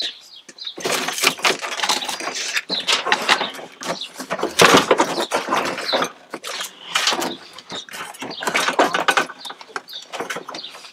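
Plastic dashboard of a Honda Civic EG hatchback creaking, clicking and rattling as it is gripped and worked loose by hand, in uneven crackling bursts that are loudest about halfway through.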